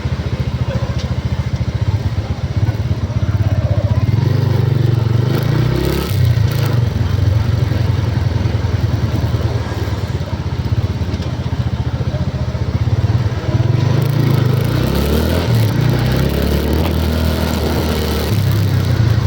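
Vehicle engine running, a loud low rumble that swells and eases several times as it speeds up and slows.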